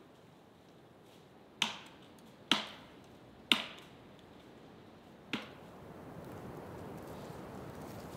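Four sharp knocks of wood being struck, irregularly spaced, each with a short echo among the trees.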